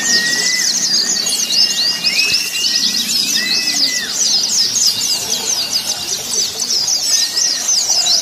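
Many white-eyes (pleci) singing at once, as at a songbird contest: a dense, fast, high-pitched twittering that never lets up, with a few longer whistled notes lower down.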